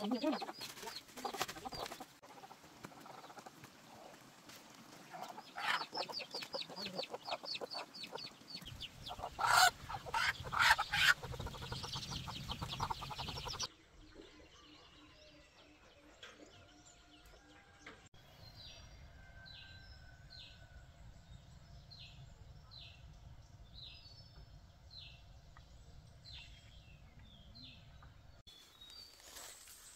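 Chickens clucking, with several loud sharp bursts about ten seconds in. In a quieter stretch later, chicks peep in short falling chirps repeated a little more than once a second.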